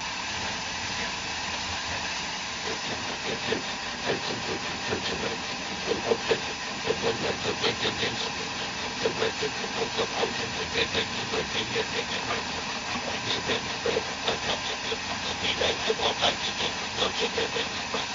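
Sun Joe 15-amp electric wood chipper/shredder running with a steady loud whir, with rapid, irregular cracks and snaps as branches are fed in and shredded.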